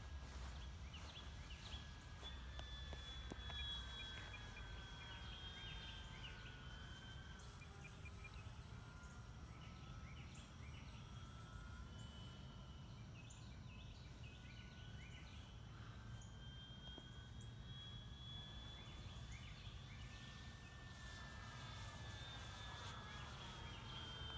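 Faint whine of an electric RC warbird's brushless motor and propeller (a Flightline F8F Bearcat 1200mm on a 4S battery) flying high overhead, its pitch sliding down and back up as the plane passes, twice.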